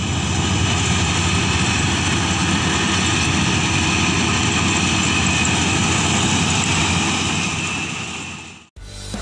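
Kubota DC-35 mini combine harvester running steadily while harvesting rice: a continuous engine-and-machinery din that fades away shortly before the end, when music begins.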